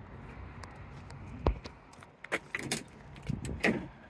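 A Jeep Wrangler's door being handled and opened: a single dull thump, then a run of light clicks and metallic rattles from the latch and hinges.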